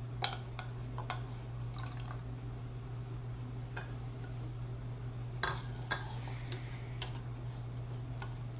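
A spoon stirring borax solution into glue in a bowl: wet dripping and mixing sounds with scattered clicks of the spoon against the bowl, over a steady low hum.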